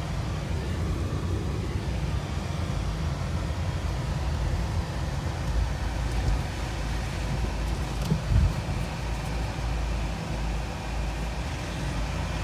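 Car interior noise while driving slowly: a steady low engine and road rumble, with one brief louder bump about eight seconds in.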